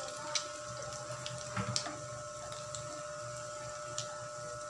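Egg and diced-potato omelette mixture sizzling in hot oil in a frying pan: a steady hiss with scattered small pops and crackles.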